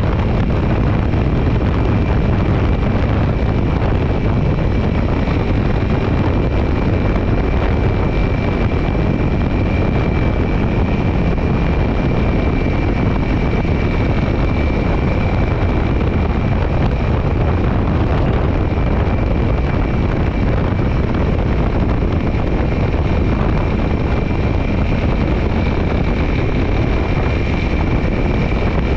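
Dual-sport motorcycle running steadily in fourth gear at about 50 to 80 km/h on a gravel road, mixed with heavy wind noise on the microphone. A thin, steady high whine sits above it.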